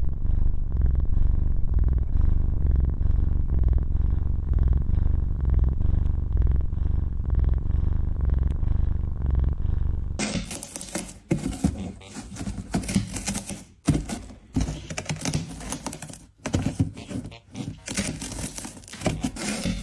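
Cat purring loudly close to the microphone, a low rumble that swells and fades in an even rhythm with its breathing. About halfway through it cuts off, and irregular clicks and knocks follow.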